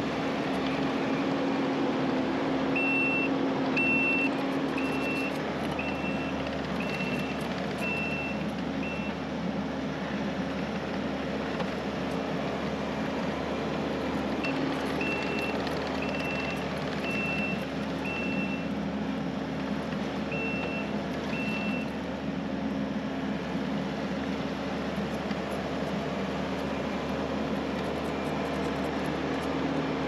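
Kubota SVL65-2 compact track loader's diesel engine running steadily while it grades gravel, with its backup alarm beeping about once a second in three runs as it reverses.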